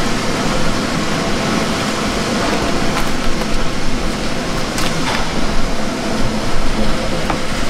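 Fishing boat's engine running with a steady, even drone. A few light clicks break through it about 3, 5 and 7 seconds in.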